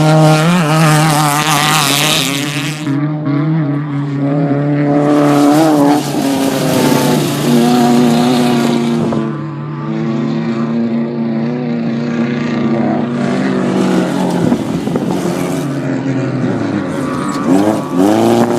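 Off-road race vehicle engines running hard, their pitch stepping between steady notes, with two long bursts of hiss in the first few seconds and again about five seconds in. Near the end an engine note dips and then climbs sharply in a quick rev.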